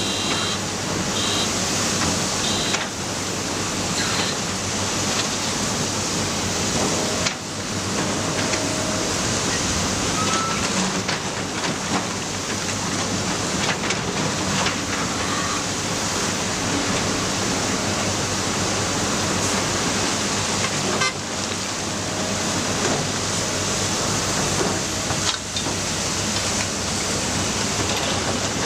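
Matador ME315 excavator's diesel engine running steadily as the machine works, a dense unbroken noise with a constant hum beneath. Brief high-pitched squeaks in the first couple of seconds.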